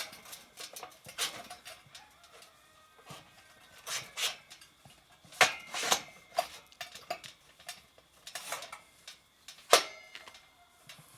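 Metal parts and tools clinking and knocking together at an irregular pace, some strikes ringing briefly; the loudest strikes come about five and a half seconds in and near ten seconds.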